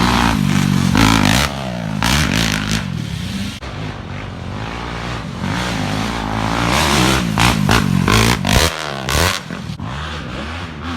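A motor vehicle's engine running and revving up and down, with sudden clattering knocks, several close together about seven to nine seconds in.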